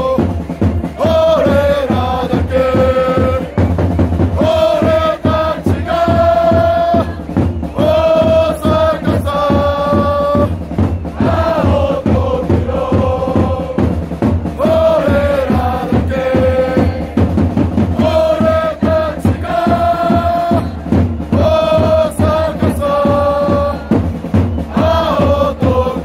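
Football supporters' chant sung in unison by many voices over a steady drum beat, its short melody repeating about every four seconds.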